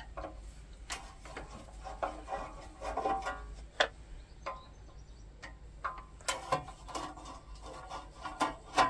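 Screwdriver undoing the screws of a scroll saw's side cover: scraping and rubbing with scattered small clicks.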